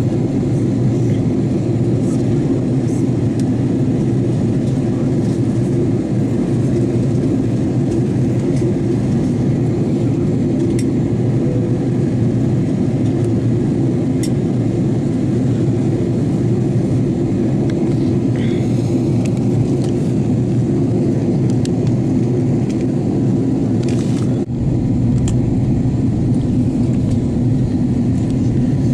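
Steady cabin noise inside an Airbus A330-200 airliner on descent: the low drone of the engines and the rush of air past the fuselage, heard from a window seat. There is a short knock about 24 seconds in.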